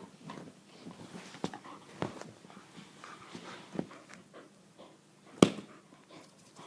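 A puppy playing with a pull toy: scattered knocks and scuffles with small dog sounds. The loudest knock comes about five and a half seconds in.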